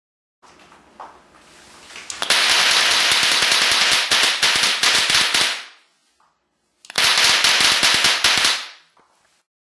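Halloween popper plate prop firing off a rapid run of crackling pops like a string of firecrackers, in two bursts: the first starts faint, turns loud about two seconds in and runs several seconds; the second, shorter one comes about a second later.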